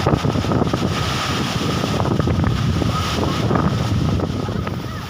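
Wind buffeting the microphone: a loud, flickering low rumble over a broad rushing hiss, easing off slightly near the end.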